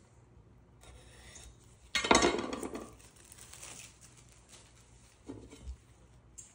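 Plastic shrink wrap being pulled off a seedless cucumber: a loud crinkling rustle about two seconds in that fades over a second or so. A couple of light knocks follow as the unwrapped cucumber is set down on a wooden cutting board.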